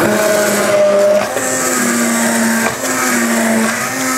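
Stick blender running in a stainless steel pot of butternut squash soup, puréeing the chunky soup smooth. The motor whirs steadily, its pitch rising slightly about a second and a half in and dipping briefly a few times.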